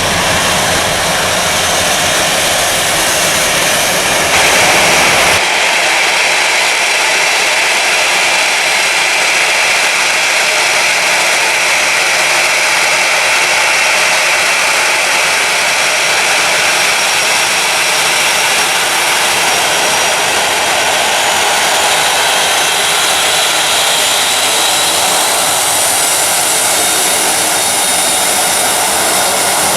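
Jet airliner engines running, a loud, steady rush of noise with faint high whining tones. The deep part of the sound drops away abruptly about five seconds in.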